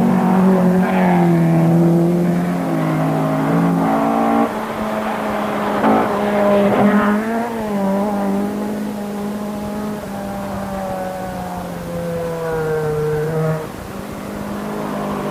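1973 rally cars' engines running hard at high revs, the pitch holding for a few seconds, then stepping with gear changes and bending as cars pass.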